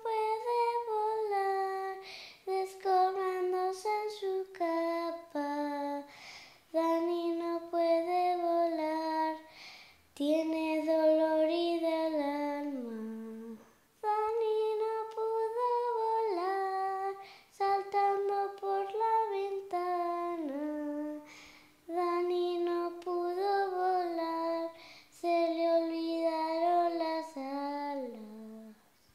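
A high voice singing a slow melody alone, in phrases of two to four seconds with short breaks between them, several phrases sliding down in pitch at their ends.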